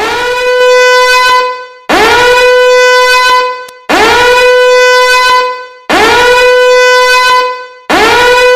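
Horn sounding five repeated blasts, about one every two seconds. Each blast swoops quickly up into one steady, loud tone that lasts about a second and a half.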